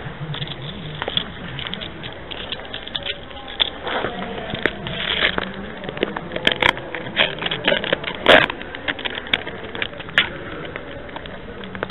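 A string of sharp clicks and knocks over crackly background noise in a low-quality recording, with faint voices in the background; the loudest knock comes a little past eight seconds in.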